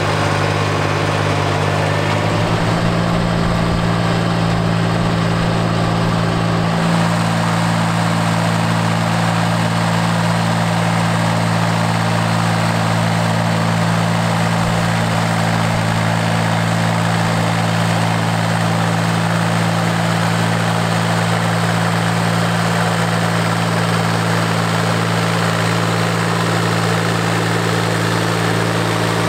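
Yanmar FX175 compact tractor's diesel engine running steadily while driving a rear rotary tiller, its note stepping up slightly about two seconds in.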